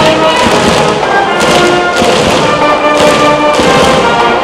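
High school cheering brass band playing a fight tune: held brass notes over beaten drums.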